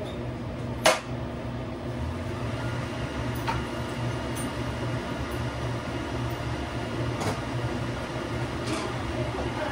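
Steady hum of restaurant kitchen equipment and ventilation, with a few short sharp clicks, the loudest about a second in.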